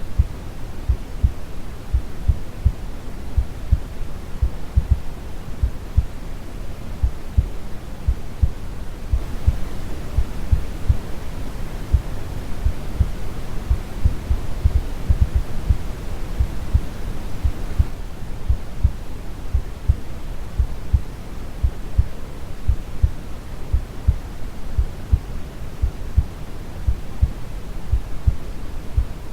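Brown noise with a steady, slow heartbeat thumping low underneath it, a little more than one beat a second. The hiss brightens slightly for a stretch in the middle.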